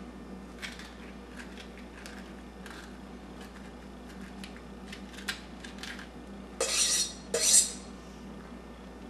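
A knife scraping avocado flesh from its peel into a stainless steel mixing bowl: light clicks and scrapes of metal on metal, then two louder scrapes of about half a second each near the end.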